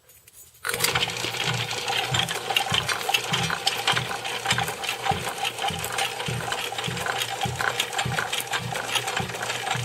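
Antique Miller Knuth reciprocating saw switched on by plugging it in, its electric motor and belt-and-gear drive starting abruptly and running steadily, with a rhythmic knock about twice a second from the reciprocating stroke. It runs with no blade fitted.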